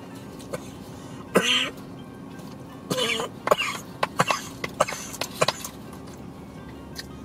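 A man coughing and clearing his throat while eating: a strained cough about a second and a half in, another near three seconds, then a quick run of short coughs and throat-clearing sounds.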